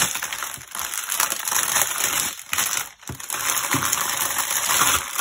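Small plastic bags of diamond-painting drills crinkling and rustling as they are handled and folded up, with a short lull about three seconds in.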